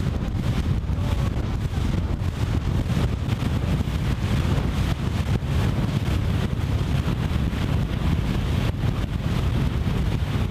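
Outboard motor of a small runabout running steadily at speed, with the rush of the wake and heavy wind buffeting on the microphone.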